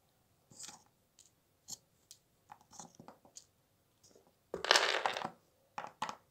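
Small plastic Littlest Pet Shop figurines being handled on a tabletop: scattered light clicks and taps as they are picked up and set down, with a louder half-second rustle about three-quarters of the way in as a figure is grabbed.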